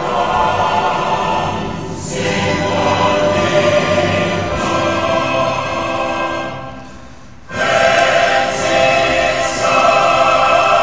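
A choir singing a slow, solemn piece with accompaniment. The sound drops away for about a second a little past the middle, then comes back in full.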